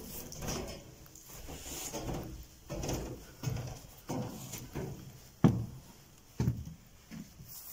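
Footsteps walking on a hard surface: irregular dull thuds, roughly one a second, with two heavier thumps about two-thirds of the way through.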